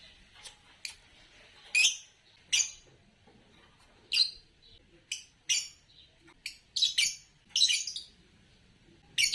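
Green Fischer's lovebirds chirping: short, sharp, high chirps at irregular intervals, a dozen or so, with quiet gaps between them.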